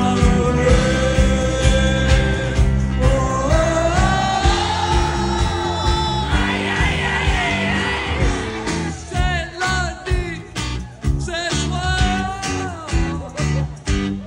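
Live rock band playing through a phone in the crowd: steady bass and drum beat under held notes that slide upward. From about eight seconds in the music turns choppy and stop-start.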